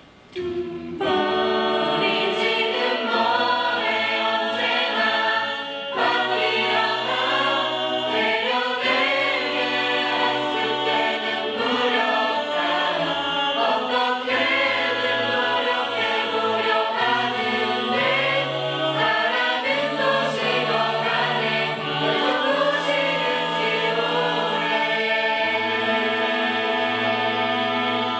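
Mixed choir singing in Korean in several-part harmony, with a steady low line beneath. It starts about a second in and breaks off suddenly at the end.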